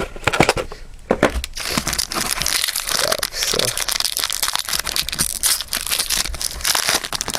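Trading card pack wrapper crinkling and tearing as a pack is torn open and handled, a dense run of quick crackles that picks up about a second in.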